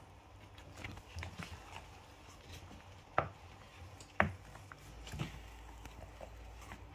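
Wooden spoon stirring thick, sticky puff puff dough in a plastic bowl: soft wet squelches and scrapes with scattered light knocks, and two sharper knocks about a second apart midway through.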